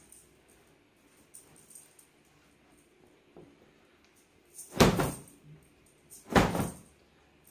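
Freshly washed bed linen being shaken out with two sharp snaps of the fabric, about a second and a half apart in the second half, with faint rustling of the cloth before them.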